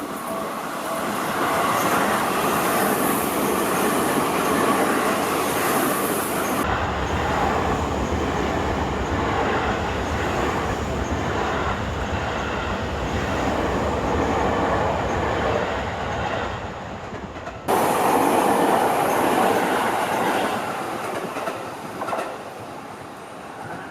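Seibu Ikebukuro Line electric train passing close by, a steady loud rush and rumble of wheels on rails. The sound shifts abruptly about seven seconds in and again near eighteen seconds, then eases off toward the end.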